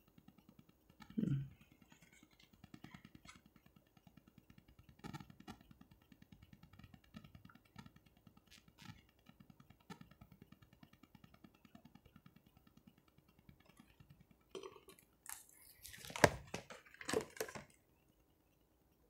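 Tarot cards handled by hand, with faint scattered ticks and then, near the end, a short burst of louder clicking and rustling as cards are slid against one another, which stops abruptly. A brief low sound falling in pitch comes about a second in.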